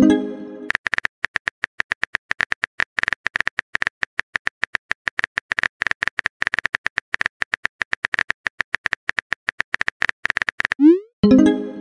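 Rapid, steady virtual-keyboard typing clicks from a texting-story app as a message is typed out. A short tonal pop marks a message being sent right at the start, and a rising swoop and pop comes again about a second before the end.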